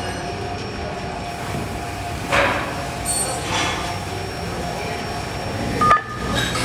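Steady foundry machinery noise while molten metal is poured from a ladle into sand moulds, with two short noisy bursts a couple of seconds in and a sharp knock near the end.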